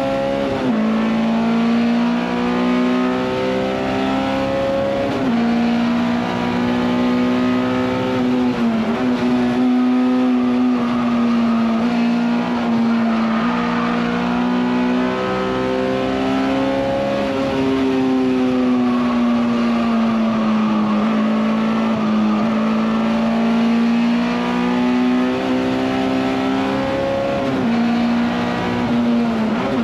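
Honda S2000 race car's high-revving inline-four VTEC engine pulling hard from inside the cabin. Its pitch climbs and then drops sharply at each gear change, several times, with a longer fall and rise in the middle as the car slows and speeds up again, over steady road and wind noise.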